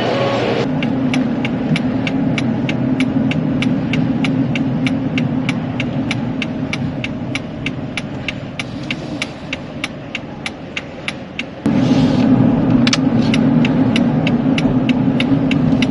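A steady low vehicle rumble with a fast, even ticking of about three to four ticks a second. The rumble gets suddenly louder about twelve seconds in.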